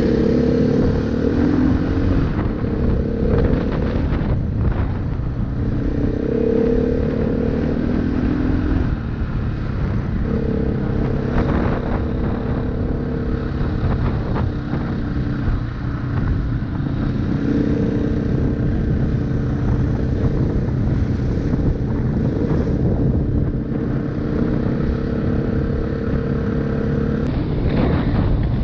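KTM 500 EXC single-cylinder four-stroke dirt bike engine running under way. Its note climbs and drops again and again as the rider accelerates, shifts and backs off.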